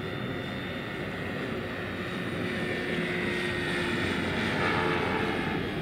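Electric-powered large-scale Bell 429 model helicopter in flight: a steady rotor whir with thin whining tones, swelling a little about four to five seconds in.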